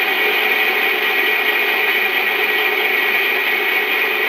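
Pillar drill running with a single-point boring head cutting the valve seat insert recess in a cast-iron BMC A-series cylinder head. A steady, even whirr of motor and cutter with a high hiss, unchanging throughout.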